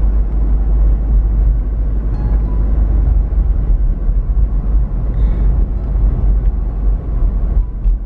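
Steady low rumble of engine and road noise inside a motorhome's cab while it drives along a street.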